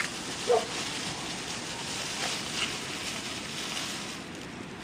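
Hookah water bubbling, a steady crackly hiss, as the smoker draws smoke through the hose. A dog gives a brief yip about half a second in.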